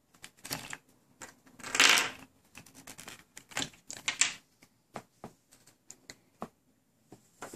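Irregular clicks and knocks of small hard plastic toy pieces as a Chubby Puppies toy carrier bag full of accessories is handled and set down on a table, with a louder, longer rustle about two seconds in.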